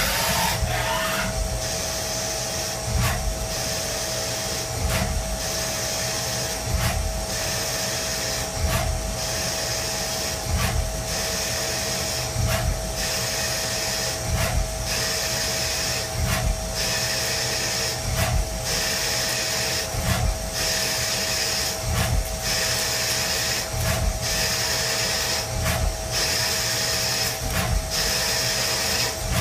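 CNC lathe cutting a thread on a spinning metal part in repeated passes: a steady whine from the machine runs under a cutting hiss that swells and stops about every two seconds, each pass marked by a sharp click.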